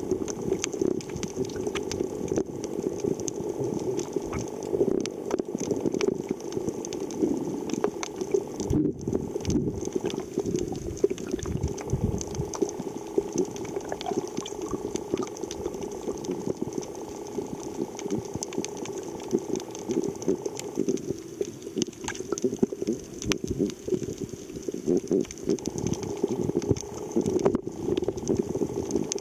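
Underwater sound picked up by a submerged camera: a dense, muffled rumbling and churning of water and bubbles with many small clicks, over a faint steady high whine.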